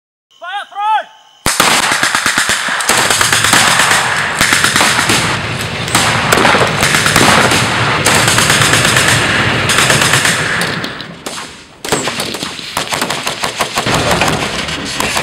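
Dense, sustained automatic gunfire that starts suddenly about a second and a half in, after a few short rising-and-falling whistle-like tones. It eases briefly about three-quarters of the way through, then resumes.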